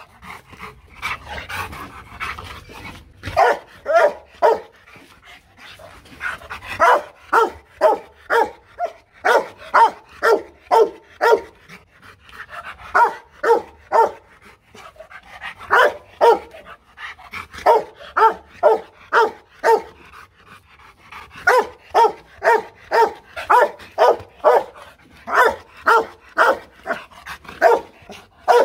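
Rottweiler barking in runs of short, loud barks at about two a second, with brief pauses between runs.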